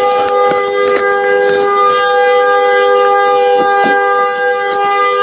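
A vehicle horn blaring without a break: two steady low notes held together, with no rise or fall in pitch.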